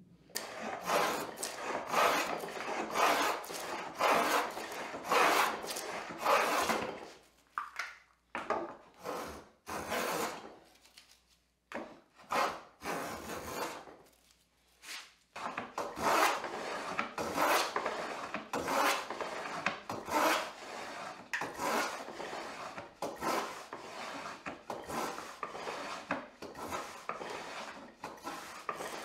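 Hand plough plane cutting a groove along the length of a wooden board: repeated shaving strokes, about one a second, with a break in the middle where the strokes come shorter and further apart.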